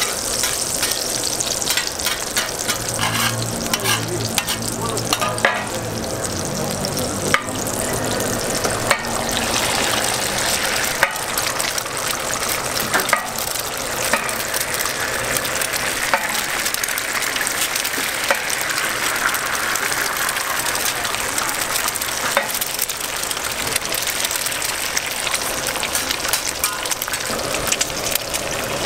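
Meat patties and eggs sizzling in oil on a steel flat-top griddle, a steady dense hiss with frequent short clicks from metal spatulas against the plate.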